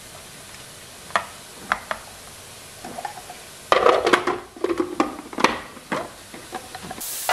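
Plastic food processor bowl and lid being handled and fitted together: a couple of light taps, then a cluster of clicks and clatter as the lid goes on. A hiss comes in near the end.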